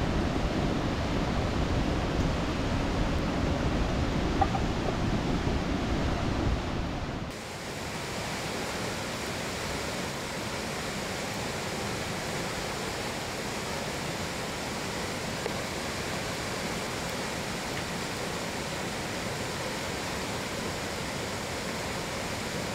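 Steady rushing noise outdoors, heavy and low for the first seven seconds, then cutting abruptly to a thinner, even hiss.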